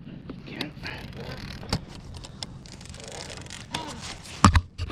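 Handling noises aboard a fishing kayak while a fish is brought in: scattered knocks and scrapes, with one loud knock about four and a half seconds in.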